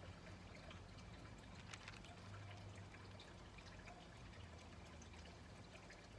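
Near silence: faint steady background hiss with a low hum, and a few faint ticks.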